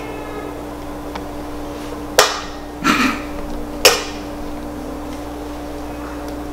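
Three sharp knocks against a stainless steel mixing bowl, about two seconds in and again at three and four seconds: eggs being rapped on the bowl's rim to crack them.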